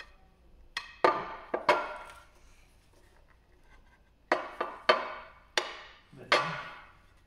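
Metal parts knocking against a cast-aluminium oil sump, each hit ringing briefly through the pan. About ten knocks come in two bursts, one near the start and one in the second half.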